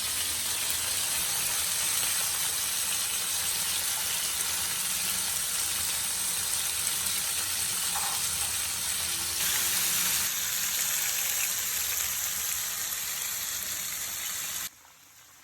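Food frying in hot oil in a pan, a steady sizzle that cuts off suddenly near the end.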